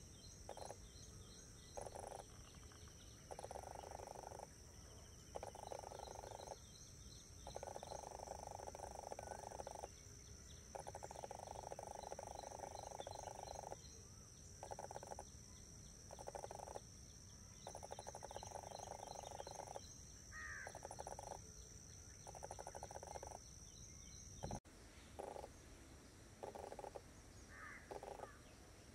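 A frog calling in long pulsed trills that start and stop again and again, some under a second and some lasting a few seconds. A steady high whine runs behind it, with a few small bird chirps. A single sharp click comes about two-thirds of the way through.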